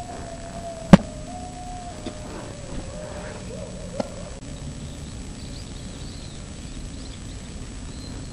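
A thrown baseball smacking into a leather glove near the microphone: one loud, sharp pop about a second in. A fainter click follows about four seconds in.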